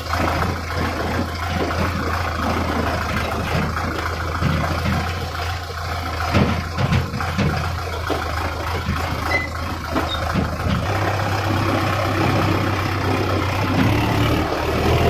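Farm machinery engine running steadily with a low hum and mechanical noise, with a few knocks around the middle.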